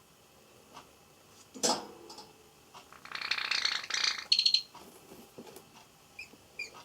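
Java sparrow feeding on pea sprouts: light scattered pecking ticks and a sharp knock, then about a second of scratchy rustling. A brief call and two short chirps come near the end.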